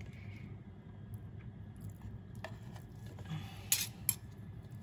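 Metal spoon scooping solidified beef fat off cooled oxtail broth in a slow-cooker crock: soft squishing and scraping, with a few sharp clinks of the spoon against the crock in the second half.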